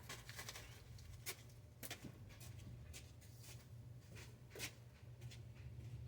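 Near-quiet stretch with a low steady hum and a few faint metallic clicks and creaks, as a floor jack is slowly let down under the vehicle.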